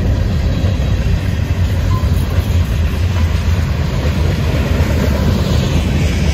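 Freight train of covered hopper and tank cars rolling past, its steel wheels running on the rails with a steady noise.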